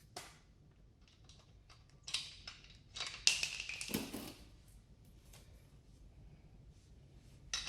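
Quiet handling noise: a few light clicks and rattles, mostly between about two and four and a half seconds in, as the freshly loosened lug nut and the impact socket are handled. The impact driver is not hammering.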